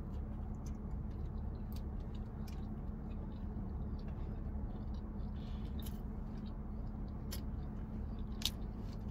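A person chewing food, with scattered soft mouth clicks, over a steady low hum.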